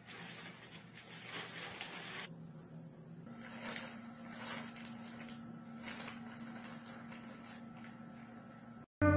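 Plastic bag rustling and crinkling faintly as a cat pushes into it and settles on it, with a faint steady low hum in the background from about three seconds in.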